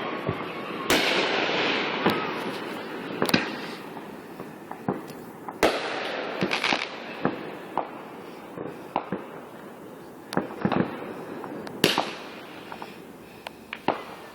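Aerial fireworks going off: about six sharp booms, each trailing off in a long echoing rumble, with smaller pops and crackles scattered between them.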